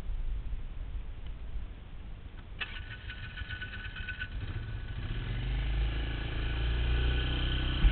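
Polaris ATV engine running; its note comes in sharply about two and a half seconds in and grows louder from about five seconds as the quad gets under way, with a single knock near the end.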